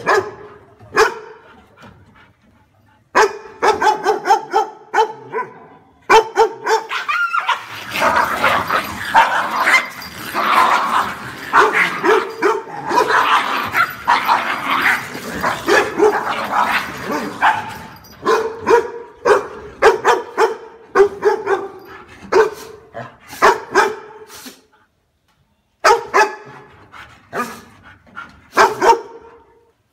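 Dog barking in rapid runs of short barks, with brief pauses between runs; the barking is thickest and busiest through the middle.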